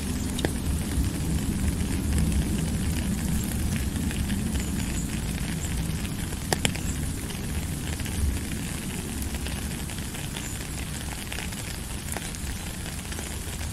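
Steady rain falling, with a low rumble beneath and a few sharp taps of single drops, the loudest about six and a half seconds in.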